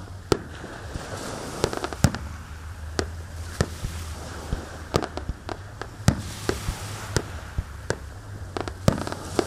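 Aerial firework shells bursting in an irregular string of sharp bangs, about one to two a second.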